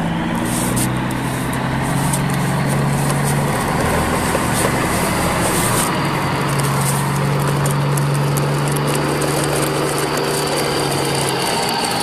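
Plastic toy trucks rolling over rough paving stones in a convoy: a steady rattling rumble with a low hum.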